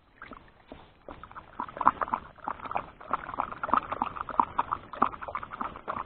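Footsteps of a walker and a leashed pointing dog crunching through dry, matted grass: a quick, irregular run of crunches and rustles that starts suddenly.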